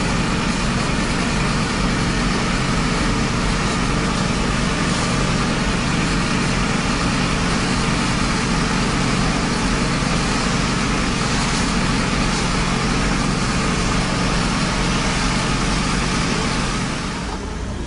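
A running engine's steady drone with the hiss of a fire hose jet spraying water onto smouldering hay. The noise eases slightly near the end.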